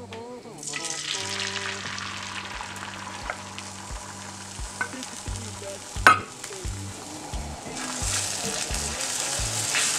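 Beaten eggs sizzling in a hot frying pan, the sizzle starting about half a second in and growing louder near the end, while a spatula stirs and scrapes them. About six seconds in there is one sharp knock of the spatula against the pan.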